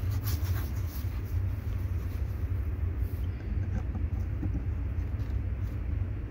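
Steady low rumble of wind buffeting the microphone, rising and falling in strength.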